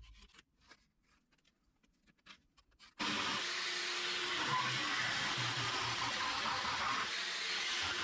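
A few faint clicks, then about three seconds in an electric jigsaw starts and runs steadily, its blade cutting through plywood.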